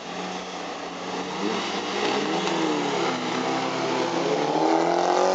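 Two BMWs, an E28 with its M10 four-cylinder and an E46 coupe, accelerating hard from a standing start. The engine pitch climbs, falls back briefly about two and a half seconds in, then climbs again as the cars pull away, getting louder.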